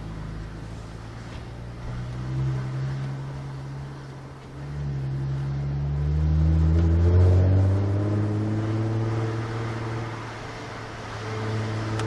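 2017 Jaguar F-Pace's 3.0-litre supercharged V6 running through a Velocity AP touring exhaust under throttle. A short rev comes about two seconds in, then a longer pull that swells to its loudest about seven seconds in and eases off, with another swell near the end.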